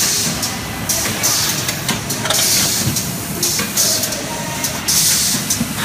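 Automatic rotary yoghurt cup filling machine running, its pneumatic valves venting short hisses of air about once a second over the steady clatter of the machine.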